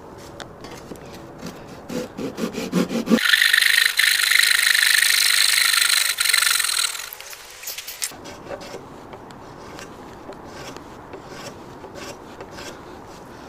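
Flush-cut hand saw trimming wood edges flush on a sawhorse: quick strokes for about three seconds, then a louder continuous stretch of sawing for about five seconds. After that only faint scattered clicks.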